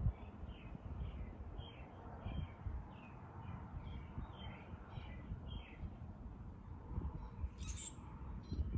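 A small bird chirping over and over in short falling notes, about two or three a second, over a low steady rumble; the chirping stops about six seconds in, and a brief sharper sound comes near the end.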